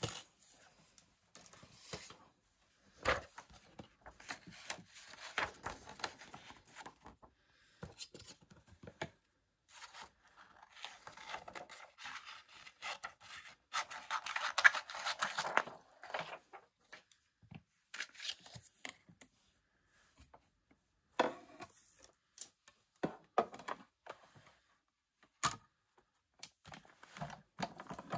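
Hands handling paper and vellum sheets on a die-cutting machine's plates: intermittent rustling and sliding of paper with scattered small clicks and taps, the longest stretch of rustling about halfway through.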